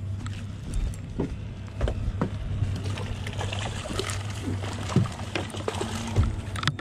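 A small hooked snook splashing and thrashing at the water's surface beside a boat as it is reeled in, louder in the second half, with scattered knocks of handling on the boat. A steady low boat-motor hum runs underneath.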